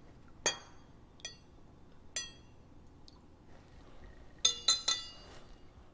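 A metal table knife clinking against a glass measuring cup of vinegar as it is stirred. Three single ringing clinks about a second apart, then a quick run of several clinks near the end.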